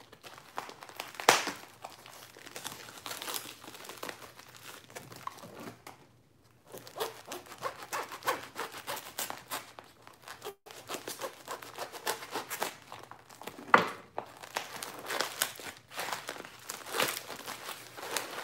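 Plastic mailer packaging and wrapping crinkling and rustling as a package is cut open and the item unwrapped, with some tearing. Two sharp, louder crackles stand out, one about a second in and one near the end.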